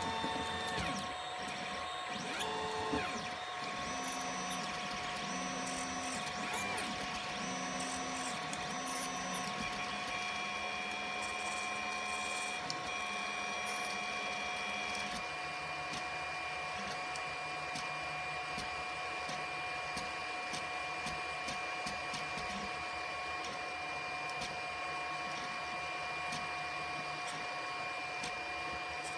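3D printer running a print: the stepper motors whine in steady tones that change pitch and switch on and off every second or two as the print head moves, over a steady mechanical hum.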